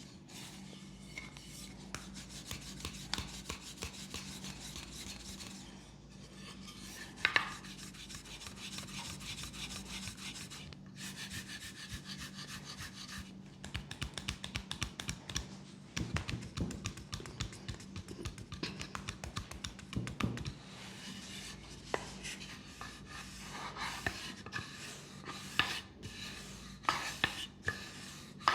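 Massage strokes on a leg: continuous rubbing on skin with fast repeated strokes, and one sharp tap about seven seconds in.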